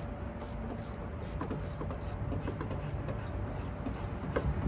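Scattered light clicks and rattles of hand tools and a battery cable terminal being worked loose during disconnection of the car battery, over a steady low background rumble.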